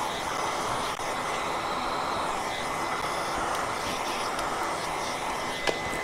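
Vacuum cleaner running steadily, its dusting-brush attachment drawing dust out of an open power supply, a rush of air with a faint high whine over it. One light tap near the end.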